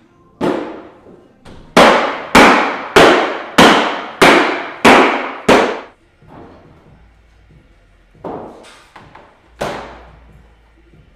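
Hammer blows on the car's sheet-metal bodywork: one strike, then a steady run of about seven hard, ringing strikes a little over half a second apart, then two more after a pause.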